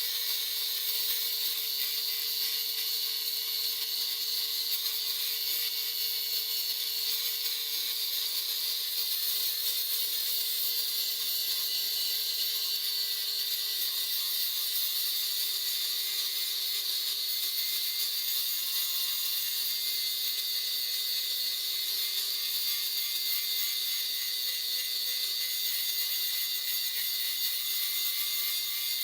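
Electric grinder running continuously against the steel of a file being shaped into a tanto blade. There is a steady high grinding hiss over a motor hum that sags slowly in pitch as the tool is loaded.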